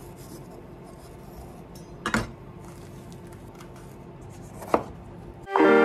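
Knife chopping bell pepper on a cutting board: two sharp strikes about two and a half seconds apart. Music comes in just before the end.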